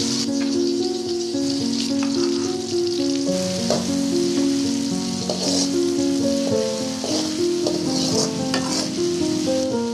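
Hot oil sizzling steadily as green chillies and garlic-ginger paste fry in a pan. A metal ladle stirs and scrapes the pan a few times. Background music with slow held notes plays throughout.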